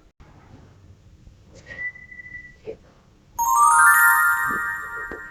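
A brief thin whistle-like tone, then about three and a half seconds in a bright chime sound effect: a quick run of bell-like tones ringing together and fading over a second or so.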